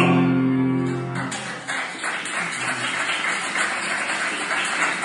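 The last held chord of an operatic tenor-and-piano performance fades out about a second in, and the audience's applause follows.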